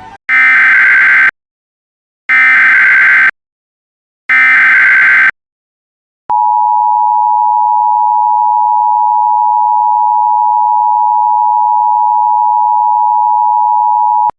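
Emergency Alert System tones: three one-second bursts of SAME header data, a harsh buzzing screech, about a second apart. About a second later the steady two-tone EAS attention signal sounds for about eight seconds and cuts off.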